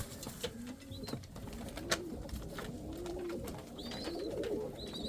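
Pigeons cooing in a loft, with scattered sharp clicks and taps and a few higher chirps near the end.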